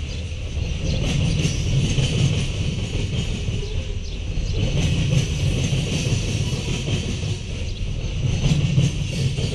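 Freight train's covered hopper cars rolling slowly past on steel wheels over jointed track: a steady low rumble that swells and eases every few seconds, with a faint high ringing above it.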